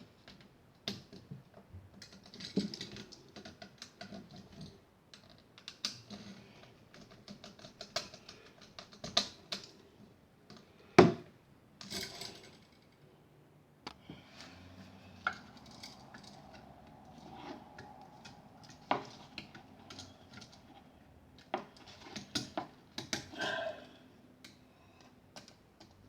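Scattered small clicks, taps and scrapes of hand tools and wires being worked on a wall light switch, with one sharp knock about eleven seconds in.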